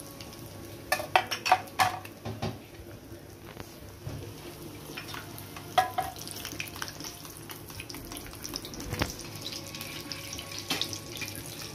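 Semolina-coated cheese balls deep-frying in oil in a metal kadai, a steady bubbling sizzle. A few sharp clinks break through, a quick run of them about a second in and another around six seconds in, as a slotted spoon is worked in the pan.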